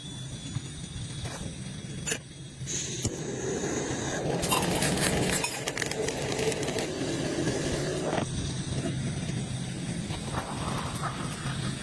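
Light clinks and scraping as things are handled, with a louder spell of rustling and scraping in the middle, over a steady low hum.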